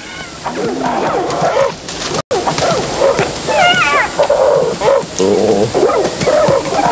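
Many overlapping animal yelps and whining calls, rising and falling in pitch, with a momentary dropout a little over two seconds in.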